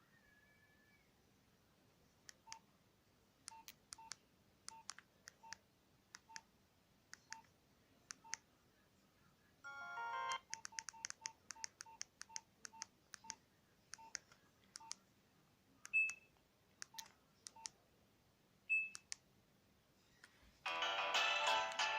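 Nokia 2310 mobile phone keypad being pressed, each press a faint click with a short beep. The presses come slowly at first, then in a quicker run after a brief chord-like tone, followed by two higher single beeps. A ringtone melody begins near the end.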